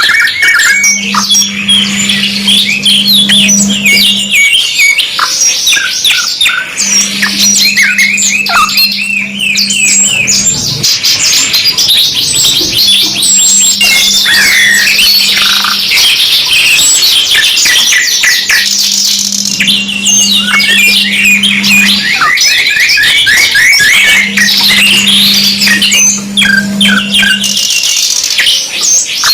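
Domestic canaries singing without a break: fast rolling trills and chirps, one phrase running into the next. A steady low hum comes and goes under the song in stretches of three or four seconds.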